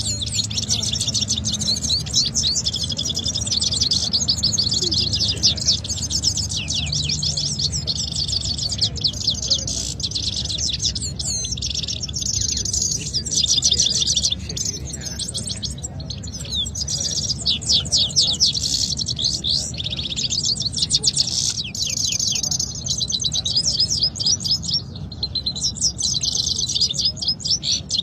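Caged canaries singing against each other: a near-continuous stream of rapid, high trills and twittering phrases, one run following another with hardly a pause.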